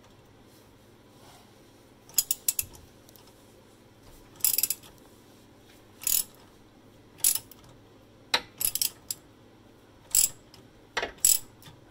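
Socket ratchet clicking in about seven short bursts as a bolt is backed out through a universal joint and extension, the pawl ratcheting on each back-swing.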